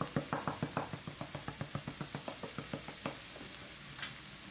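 Onion and pepper sofrito sizzling in a frying pan, with a quick run of light taps, about six a second, through the first three seconds. Then come a couple of single knocks.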